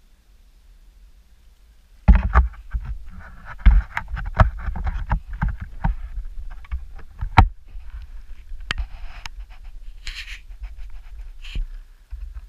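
Knocks, scrapes and splashing as the homemade plywood RC boat is handled and pushed off into the water, heard through the GoPro screwed to its deck. Quiet at first, the knocks start about two seconds in and come thick and irregular after that.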